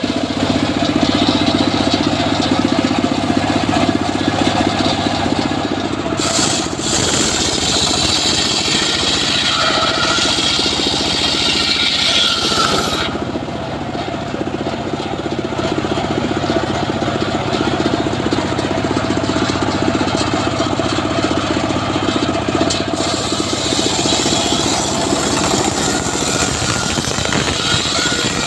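Homemade engine-driven circular saw bench ripping teak boards. The blade gives a high-pitched cutting noise over the steady engine. The cutting noise is strongest in the first half, then eases off.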